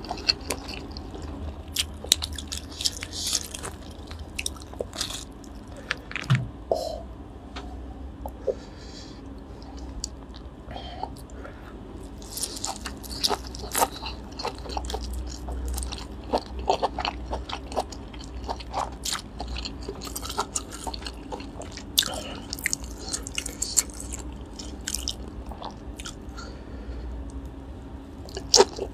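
Close-miked eating of grilled lobster tail meat: biting and wet chewing, full of many small sharp clicks and crackles from the mouth.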